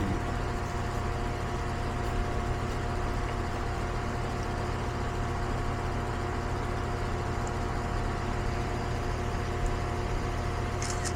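Goodman central air conditioner's outdoor condensing unit running steadily: compressor hum and condenser fan noise, with a constant whine tone over it.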